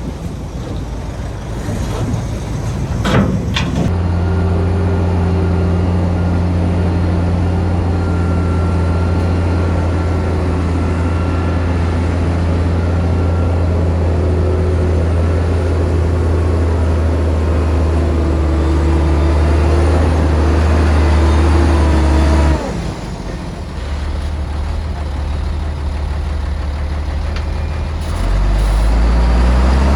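Heavy diesel engine of earthmoving machinery running at a steady low drone. It cuts off abruptly partway through, leaving a quieter rumble, then rises in pitch near the end as it revs up. A short sharp hiss comes just before the drone starts.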